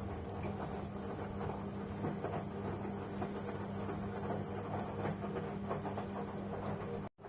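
Steady electric machine hum with scattered light clicks and knocks over it. The sound cuts out abruptly for a moment near the end.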